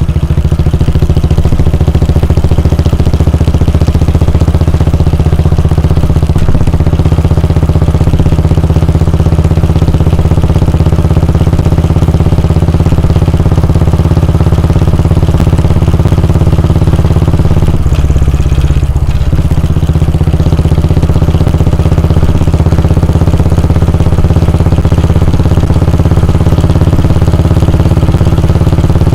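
Royal Enfield Bullet 350's 349 cc air-cooled single-cylinder engine running steadily, with a short dip in its sound about 18 seconds in.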